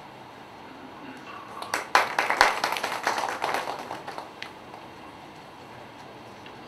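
Audience applauding briefly: scattered hand clapping starts about two seconds in and dies away after a couple of seconds.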